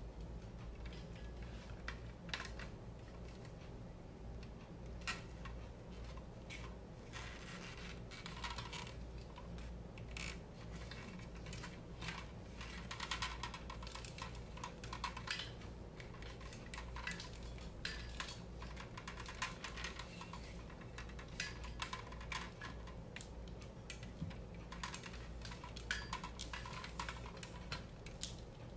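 Scattered light plastic clicks and rattles as a ring light is handled and fitted onto a tripod stand and its cable is untangled, over a steady low hum.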